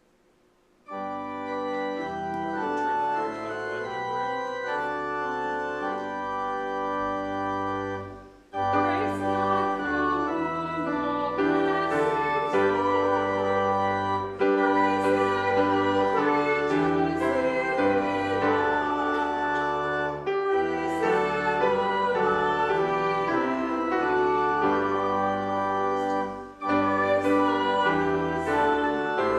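Church organ playing sustained chords over a stepping bass line. It starts about a second in, breaks briefly about eight seconds in and comes back louder, with another short break near the end.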